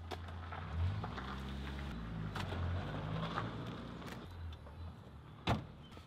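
Low hum of a motor vehicle's engine running, fading after about three seconds, with faint knocks of things being handled. A sharp knock comes near the end.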